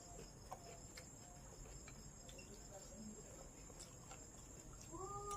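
Near silence: a faint, steady high-pitched tone with a few soft, scattered clicks, and a short voiced sound near the end.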